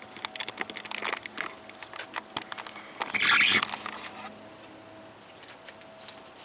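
Small hard-plastic clicks and rattles from a Transformers action figure being handled and worked, with a louder scratchy rasp lasting about half a second about three seconds in.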